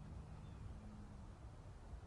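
Quiet background ambience: a low rumble with a faint steady hum that fades out about a second in.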